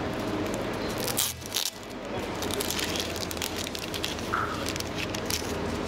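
A small packet of fishing swivels crinkling and crackling as it is handled and opened, over a steady low hum in the room.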